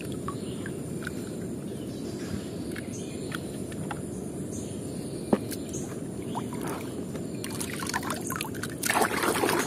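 Muddy water sloshing and trickling as wet toy cars are lifted out and handled, with scattered light clicks of the toys. There is one sharp click about five seconds in and a louder splash near the end.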